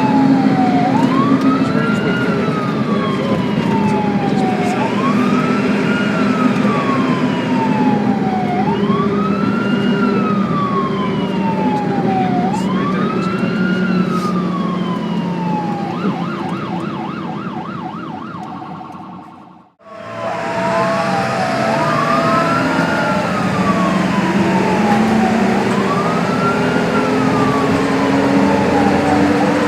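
Ambulance siren wailing over vehicle engine and road rumble: each cycle rises quickly and falls more slowly, about once every four seconds. About sixteen seconds in it switches to a fast warble, then fades out just before twenty seconds, and a second siren recording starts straight away with overlapping wails.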